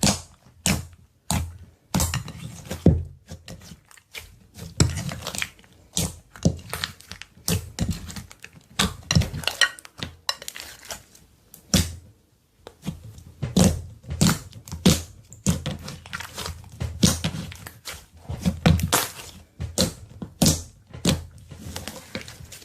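Slime being mixed and squeezed by hand, making a dense, irregular run of sharp pops, clicks and squishes.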